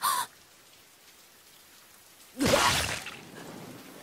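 Rainfall in an anime soundtrack, a fainter hiss after the loud sounds. There is a short sharp sound right at the start, and a loud burst with a falling pitch about two and a half seconds in.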